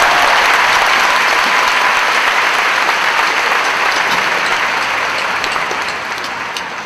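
Large theatre audience applauding, a dense wash of clapping that starts loud and tapers off over the last couple of seconds.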